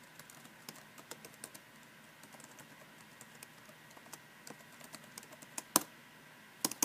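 Typing on a computer keyboard: a run of irregular key clicks, with one much louder keystroke, the Enter key, about six seconds in, followed by a few more clicks near the end.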